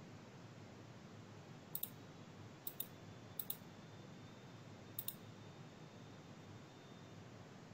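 Four pairs of faint, sharp double clicks, spaced a second or so apart, over a low steady hiss, with a thin high whine from about the third second to near the end.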